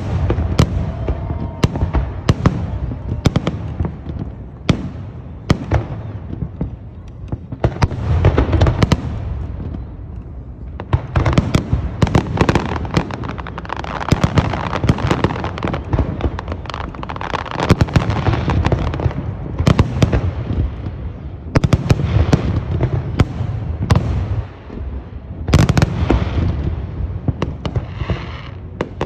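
Aerial fireworks display: a continuous barrage of booming shell bursts, one after another, over a rumbling wash of echoing reports, with crackling near the end.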